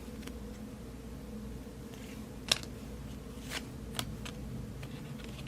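Baseball cards being handled at a table: a few short, light clicks and taps from about two and a half seconds in, over a faint steady hum.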